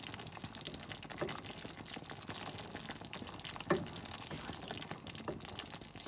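Thick tomato sauce simmering in a pan as a wooden spoon stirs it: a steady, soft bubbling with a few sudden plops of bursting bubbles, the loudest about two-thirds of the way in.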